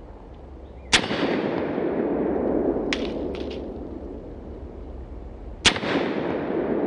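Two shots from a Harrington & Richardson .32 ACP self-loading pistol, about five seconds apart, each followed by a long rolling echo.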